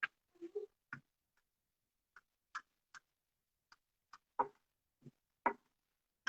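Rolling pin clacking and knocking on a rolling board while dough is rolled out into a tortilla wrap: about a dozen short, irregular clicks and knocks, the loudest two near the end.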